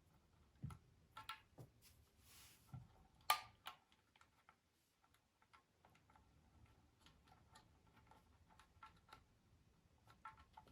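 Scattered small clicks and light knocks of hands handling tools and small parts, with a brief rustle and then one sharper knock about three seconds in.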